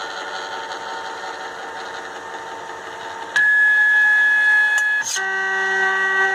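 3D printer's stepper motors running as the head moves. A quieter steady whine jumps about three seconds in to a loud high steady tone, which changes near five seconds to a loud chord of several steady pitches.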